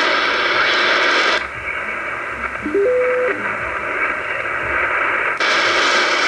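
Shortwave radio receiver hiss and static with no clear programme audible, from the high noise level on the low shortwave frequencies. About a second and a half in, the hiss turns duller and narrower for about four seconds, with a brief whistle stepping up in pitch in the middle, then the full hiss returns.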